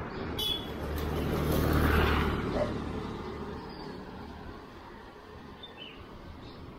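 A motor vehicle passing close by: its engine sound swells to a peak about two seconds in, then fades away.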